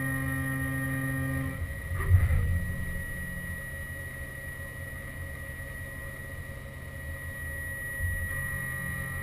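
Haas VF2 CNC vertical mill running: a steady multi-tone motor whine stops with a loud clunk about two seconds in, leaving a lower machine hum with a high steady tone, and the whine starts again near the end.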